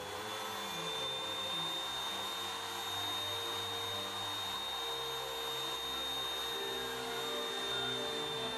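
Router mounted under a router table running steadily with a constant high whine, its bit cutting reed flutes into a turned wooden dome finial.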